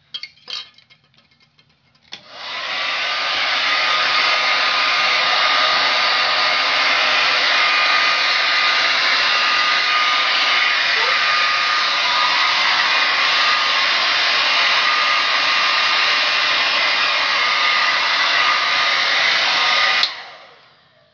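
Pink Revlon handheld hair dryer switched on about two seconds in, coming up to speed over a second or so and then blowing steadily with a faint whine, before being switched off near the end and winding down.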